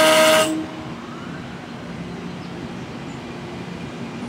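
Horn of a General Electric Arrow III electric multiple-unit car ending a long blast and cutting off about half a second in. The low, steady rumble and hum of the train pulling away follows.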